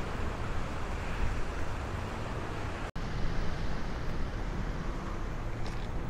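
Wind buffeting the microphone over the wash of surf on a sandy beach, a steady noise with a gusty low rumble. The sound cuts out for a split second about halfway through.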